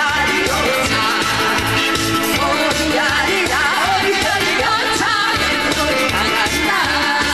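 Three women singing a Korean folk-style song together into microphones over an amplified backing track with a steady beat.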